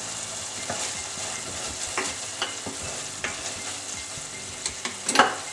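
A wooden spatula stirring a thick tomato and spice sauce in a frying pan, scraping and tapping against the pan while the sauce sizzles steadily. One sharper, louder knock comes near the end.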